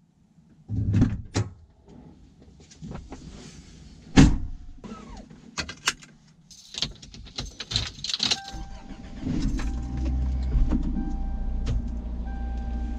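Clicks and clunks inside a pickup's cab as the seatbelt is buckled, with one sharp clack about four seconds in. About eight seconds in, the 1997 Ford F350's 5.8-litre gas V8 starts and settles into a steady idle, heard from inside the cab.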